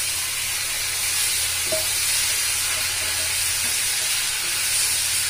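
Boiled elephant foot yam pieces sizzling in hot oil in an iron kadai as they are tipped in and turned with a spatula: a steady, loud frying hiss.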